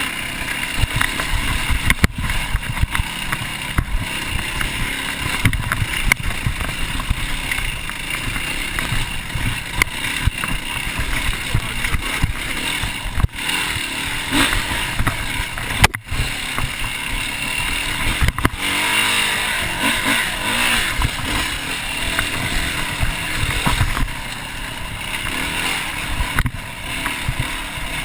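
Off-road motorcycle engine running as it rides over rough ground, its level rising and falling, with a few sharp knocks from bumps.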